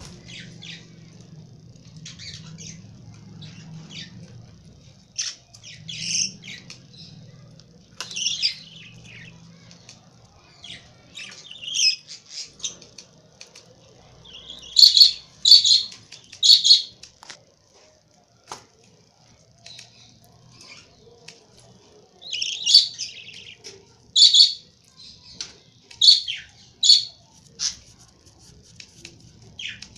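Lovebirds calling: short, shrill chirps and squawks, scattered at first, then a loud run of three about halfway through and a cluster of four or five more a few seconds later.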